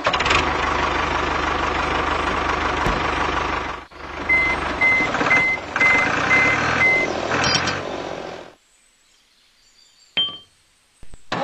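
A tractor engine sound running steadily while a reversing alarm beeps six times, about two a second, as the toy tractor backs up to the trailer. The engine sound stops at about eight and a half seconds, leaving near silence with one short click near the end.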